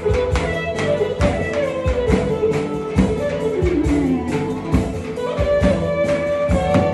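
Live wedding dance music: a lodra, the large double-headed folk drum, beats a steady rhythm under a melody line that slides in pitch, with one long downward glide near the middle.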